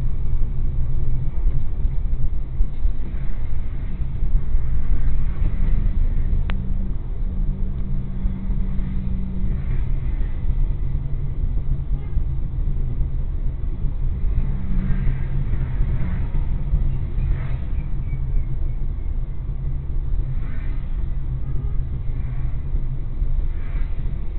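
Steady low rumble of a car's engine and tyres, heard from inside the cabin through a dashcam while driving at low speed, with a faint engine hum and a brief click about six seconds in.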